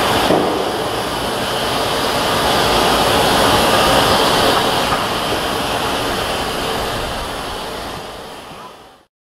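JNR Class C62 steam locomotive No. 2 standing in steam, giving off a steady hiss that fades out near the end.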